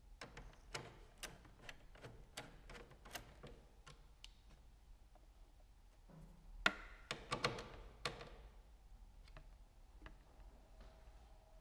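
Ratchet socket wrench clicking as it tightens the nut holding the mirror catch cable's eyelet on the mirror mount. A string of single clicks, a few a second, runs for about three seconds, then a louder cluster of clicks and metal rattling comes about seven seconds in.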